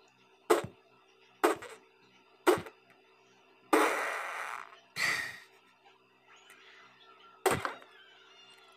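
Puffed-up cheeks popped with the fists: three sharp pops about a second apart as the trapped air bursts out through the lips. About halfway, two longer sputtering rushes of air are squeezed out through pursed lips as she presses her fists into her cheeks, and one more pop comes near the end.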